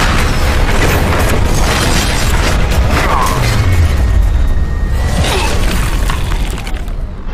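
Fight sound effects of two giant armoured robots clashing: heavy booms and metallic impacts with a deep rumble, over a music score. The low rumbling is heaviest about halfway through and thins out near the end.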